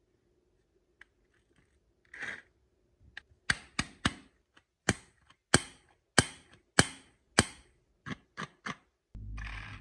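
Marbles clacking down a wooden HABA marble run: a quick series of sharp clicks and knocks, about two a second at their loudest, then a short steady rolling rumble near the end.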